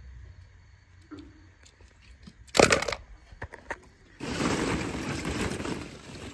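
Hollow plastic ball-pit balls clattering: one short loud rattle about two and a half seconds in, a few light clicks, then about two seconds of steady rustling clatter as a hand digs through the balls.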